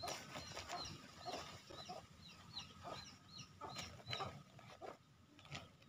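Chickens calling: a steady run of short, high peeps, about two a second, with lower clucks, over soft scrapes and rustles of soil being pressed into a plastic nursery bag.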